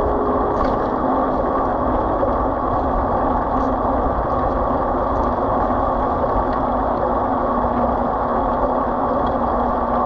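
Steady vehicle noise: an engine running with a continuous rumble and hiss that stays even throughout.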